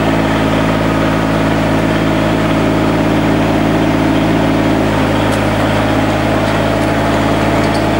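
Mini excavator engine running steadily at idle.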